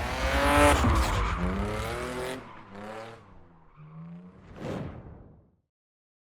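A car revving with tyres skidding, loud for the first two seconds or so, then trailing off in weaker gliding sounds that die away after about five seconds.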